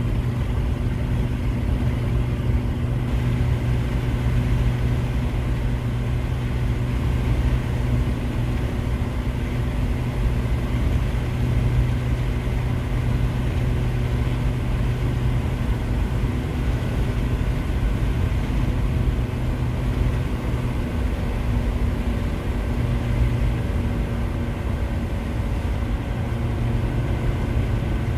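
Volkswagen Eurovan cruising at steady highway speed, heard from inside the cabin: a constant engine drone with steady tyre and road rumble, no change in speed.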